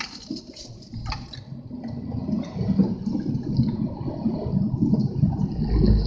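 Strong wind buffeting the microphone: a gusty, fluctuating low rumble that builds toward the end.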